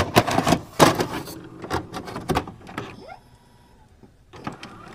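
A quick run of clicks and knocks that thins out about three seconds in, with a few more clicks near the end.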